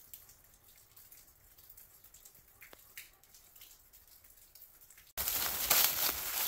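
Meltwater dripping from icicles under a sandstone overhang, with scattered faint drips. About five seconds in, it cuts to much louder crunching of dry fallen leaves underfoot.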